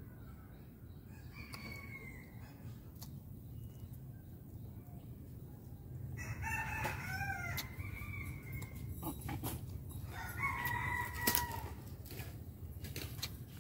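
A rooster crowing twice, about six seconds in and again around ten seconds, with fainter bird calls earlier. Scattered small clicks run through it.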